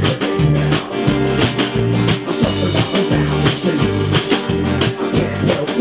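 Live band playing an instrumental passage of a country-style song: strummed guitars over a pulsing bass line and a steady beat.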